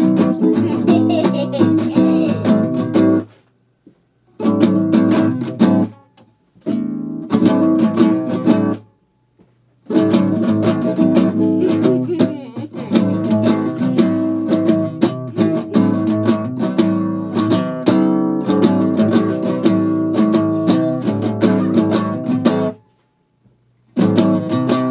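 Acoustic guitar strummed in a fast, busy groove, played by three hands at once; the playing breaks off and starts again several times, with the longest run in the middle.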